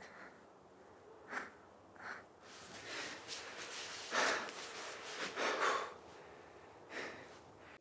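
A young man breathing and sniffing in short, sharp breaths, the strongest about four and five and a half seconds in.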